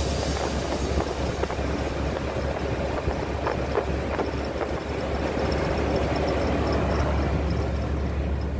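Steady road noise of a moving car heard from inside the cabin, mostly a low hum from the engine and tyres with a faint hiss above it.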